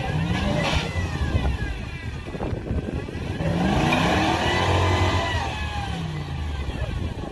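Modified off-road 4x4's engine revving in bursts as it churns through deep mud, the pitch climbing and dropping. The longest and loudest rev comes about halfway through, then falls away.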